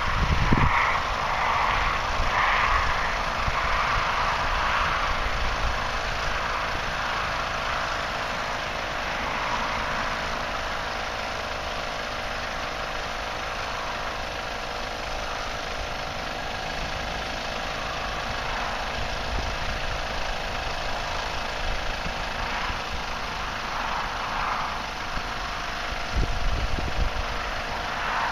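Twin 12V electric air compressors running steadily, a constant hum pumping air into an inflatable tent. Low rumbles come and go near the start and near the end.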